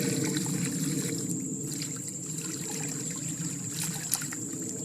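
Water trickling and lapping at a pond's edge, under a steady high insect drone, with one sharp click about four seconds in.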